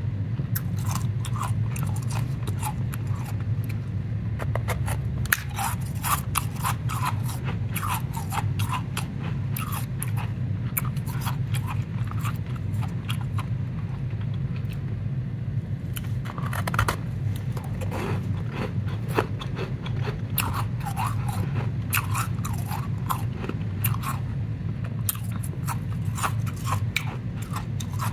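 Powdery shaved ice crunching and crackling as it is squeezed and packed between rubber-gloved hands: a dense, irregular run of fine crisp crackles over a steady low hum.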